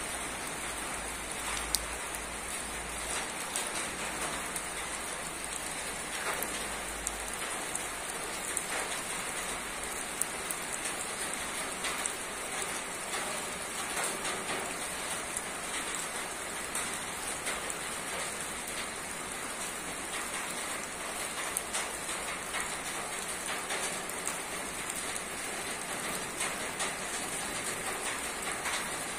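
Steady rain falling on a roof, a constant patter with many individual drops tapping sharply on top.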